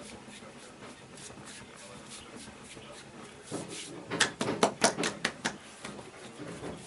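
Hands working on a body during a massage: faint rhythmic rubbing strokes, then a quick run of about seven sharp slaps on the body about four seconds in.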